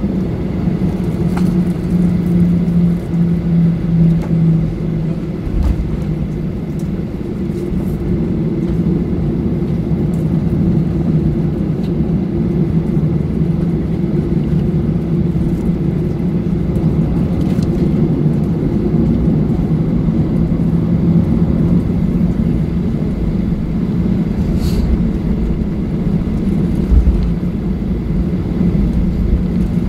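Steady low engine rumble with a constant droning hum, from inside a large vehicle.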